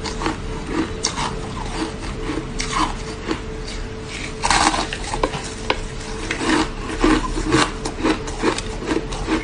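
Frosty, crumbly frozen ice being bitten and chewed close up: a run of quick crunches, with a louder, longer crunch about four and a half seconds in.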